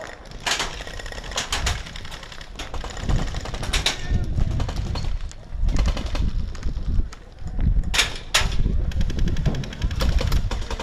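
Airsoft guns firing: sharp pops and clicks of BB shots, single and in short bursts, with a faster automatic run near the end. A low rumble on the microphone runs under the shots from about three seconds in.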